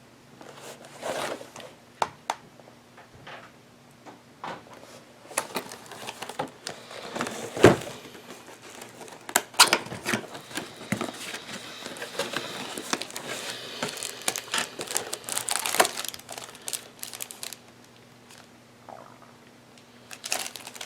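Packaging being handled as a camera is unwrapped: crinkling wrap and rustling, with scattered sharp clicks and knocks, then a quieter stretch near the end.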